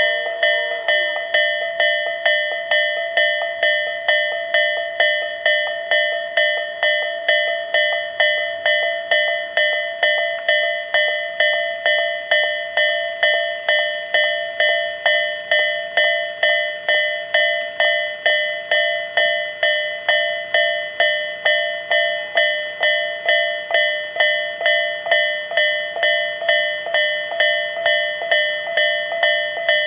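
Japanese railway level-crossing warning bell ringing its repeated "kan-kan" alarm, an even pitched strike a little under two times a second, each dying away before the next.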